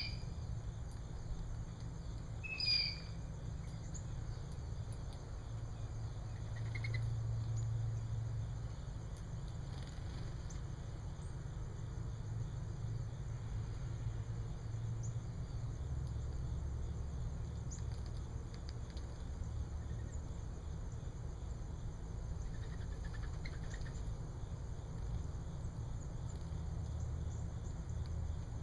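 Backyard ambience: a steady low rumble with a few short, sharp bird chirps, the loudest right at the start and about three seconds in, fainter ones later.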